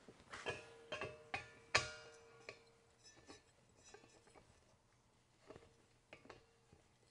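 Steel 1 lb Coleman propane cylinder clinking and knocking against metal as it is handled and threaded onto a propane refill adapter. A cluster of sharp taps comes in the first two seconds, and a few more come later; several of them ring briefly with a metallic tone.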